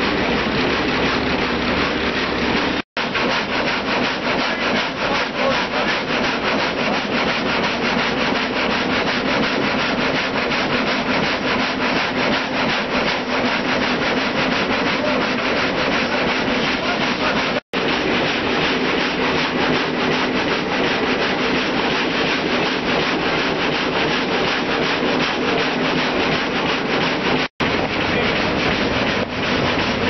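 Multi-blade gang saw ripping a squared timber cant into boards: a steady rasping cutting noise over a constant machine hum. It breaks off for an instant three times.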